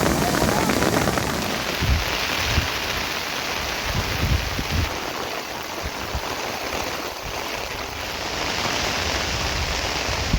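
Steady rain, with a few low bumps of wind on the microphone in the first half.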